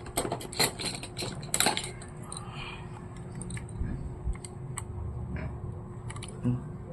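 Sharp clicks and taps of a small tool working on a stiff part inside a laptop: a quick flurry in the first two seconds, then scattered single ticks.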